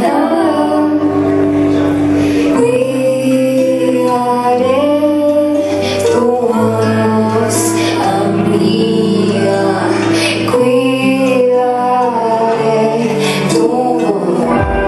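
Live band music: a woman singing over sustained keyboard chords and a low bass line that moves to a new note every second or two.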